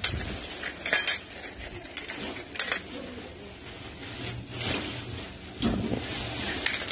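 Stainless-steel spoons, forks and ladles clinking against each other inside a plastic bag as a hand rummages through them, with the bag rustling. Several sharper clinks stand out between quieter shuffling.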